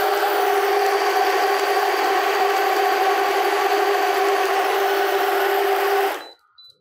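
Deerma NU06 portable battery blender's motor running with a steady whine, blending a shake in which no ice clinks any more: the ice is fully crushed. The motor cuts off about six seconds in.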